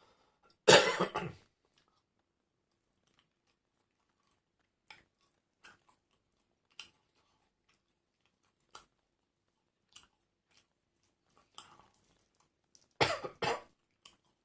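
A person eating: faint chewing clicks spaced a second or so apart, broken by two loud, short bursts, one about a second in and one near the end.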